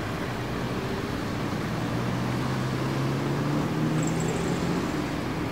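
City traffic noise: a steady hum of car and vehicle engines, with faint high chirps about four seconds in.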